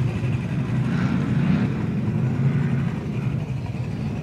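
A vehicle engine running nearby at a steady idle, a continuous low rumble.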